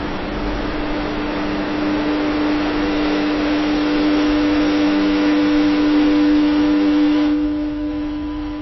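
Ironworks factory ambience: a steady machinery drone with a strong low hum and a few fainter tones over a noisy wash, fading down near the end.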